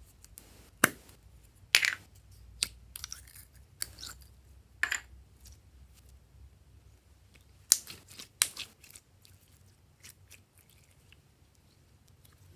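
Hands working clear pink glitter slime, giving irregular sharp sticky clicks and pops with quiet gaps between them. Most come in the first five seconds, with another pair near eight seconds.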